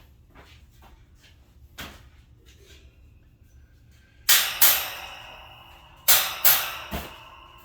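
Sharp knocks on a metal storage-rack shelf as it is tapped down to seat on its poles: two strikes, a pause, then three more. The metal rings briefly after each one.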